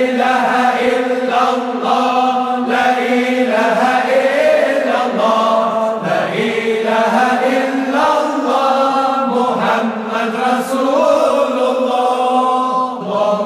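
Islamic zikr chanting: voices singing together in a melody that rises and falls over a steady, low held note.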